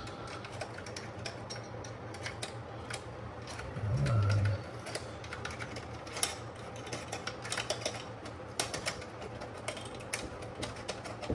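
Scattered small clicks and taps of computer hardware being handled and fitted inside a Mac Pro tower, with a brief low murmur about four seconds in.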